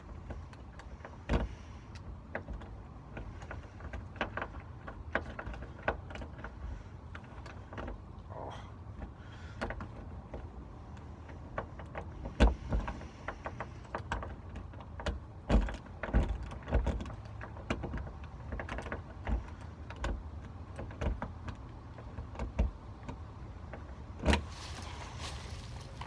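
Small irregular clicks and knocks of a locksmith's tools working a door lock, with a few louder knocks in the middle and a short scraping rattle near the end.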